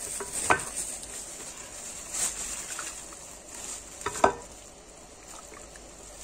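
Light kitchen handling sounds over a steady hiss: a few soft clicks and taps, and one sharper clink about four seconds in, as the okpa mixture and its nylon wrapping are worked by hand.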